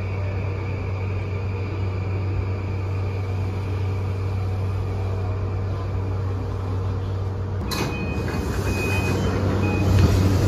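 Interior of an E235 series commuter train standing at a platform, with a steady electrical hum. About three-quarters of the way in the doors open with a sudden rush, and the door chime beeps several times. Platform noise follows.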